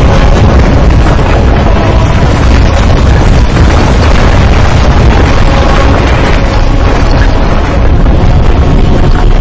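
Loud, continuous rumbling and booming film sound effects of heaving, breaking rock, with sustained music notes held underneath.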